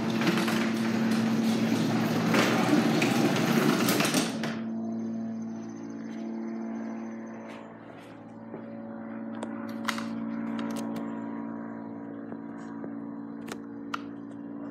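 Power-Lift (Allister) 1/3 HP garage door opener running a Wayne Dalton sectional door, a loud mechanical rumble and rattle that cuts off suddenly about four seconds in as the door reaches its stop. A fainter steady hum remains, with a few sharp clicks.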